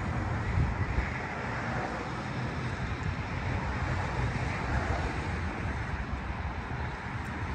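Steady traffic noise from a highway right beside the spot, with wind on the microphone.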